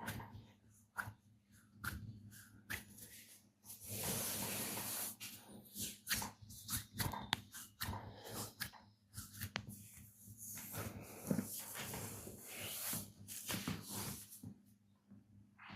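Hands working over skin in a massage: rubbing strokes that give a rushing hiss, with many short slaps and clicks scattered between them.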